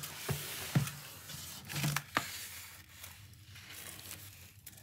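Crinkling and tearing of metallic packing tape and foil packing being handled and pulled off a cardboard box, with a couple of sharp clicks about one and two seconds in.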